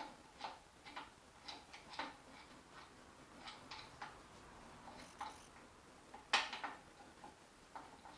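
Scattered light metallic clicks and clinks of large locking pliers (mole grips) being adjusted and set on a motorcycle's steering-head castle nut, with one louder clank a little past six seconds in.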